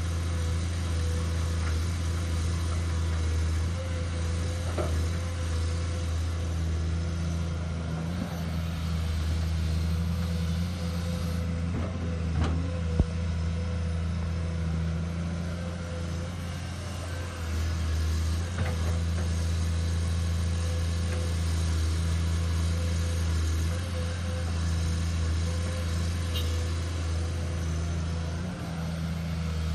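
Komatsu PC210 crawler excavator's diesel engine running steadily under digging load, with a constant whine over the low engine drone. A single sharp knock about thirteen seconds in.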